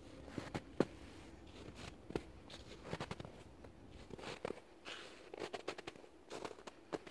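Footsteps crunching in snow at a slow walking pace, with a crunch about every second and small sharp crackles between them.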